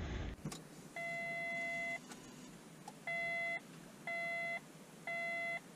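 The BYD e6 electric car's dashboard chime beeping as the car is switched on: one beep lasting about a second, then three shorter beeps about a second apart.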